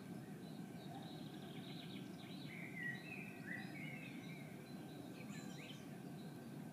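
Birds chirping in short, scattered high calls over a faint, low, steady rumble of outdoor background noise.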